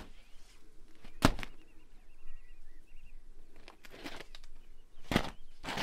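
Crisp knocks and rustles from fresh tandoor flatbreads being handled and set down on a stack: one sharp knock about a second in, then a few more near the end. Small birds chirp faintly between them.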